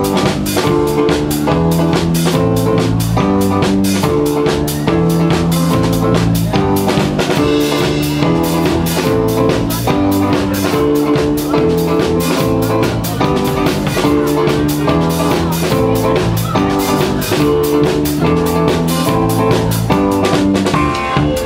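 Live band playing a song: a drum kit keeps a steady beat under keyboard chords.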